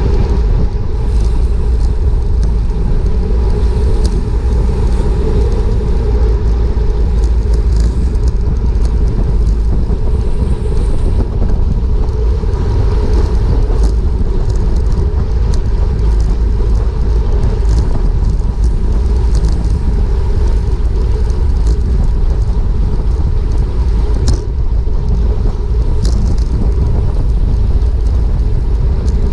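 Wind rushing over a GoPro's microphone on a racing bicycle, a steady deep rumble with faint tyre and drivetrain noise and a few sharp clicks here and there.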